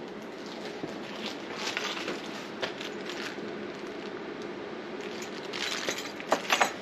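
Crinkling and rustling of a plastic bag and small parts being handled, in two spells of short crackly bursts, over a steady low room hum.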